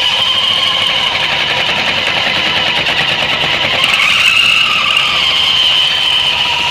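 Suzuki Burgman 650 parallel-twin engine running with its CVT variator turning, a steady high-pitched whistle over the engine noise. The whistle is an unexplained one from the variator that comes and goes as its sheaves close and open.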